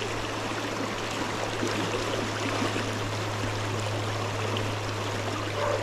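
Mountain trout stream flowing: a steady rush of water.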